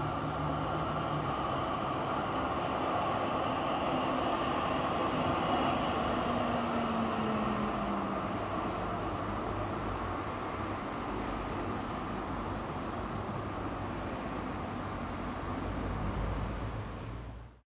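Noise outro at the end of a post-black metal track: a dense, steady roar with a low tone sliding slowly downward partway through, which cuts off suddenly near the end.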